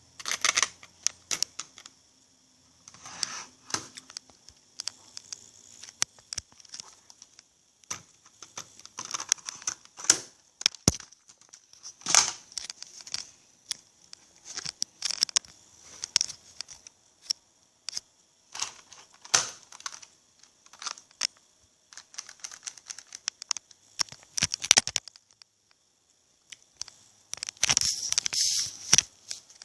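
Toy BB-gun Desert Eagle pistol being handled: irregular clicks, knocks and rattles of hard plastic parts, with a denser burst of rattling near the end.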